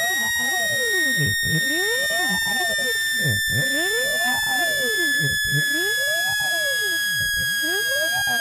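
Synthesized speaker-cleaning tones: a high steady tone that slowly falls in pitch, with lower tones gliding up and down about once a second.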